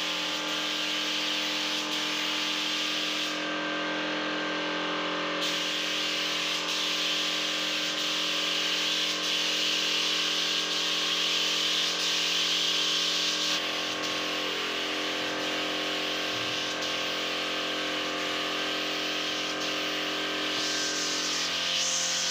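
Hose-fed spray gun hissing steadily as it sprays varnish onto a wooden door, over a steady machine hum. The hiss changes briefly about four seconds in and again partway through.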